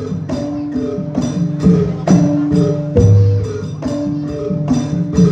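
Javanese gamelan playing a jathilan piece: struck bronze metallophone and gong-chime notes in a steady rhythm with drum strokes, and one deep low gong stroke about three seconds in.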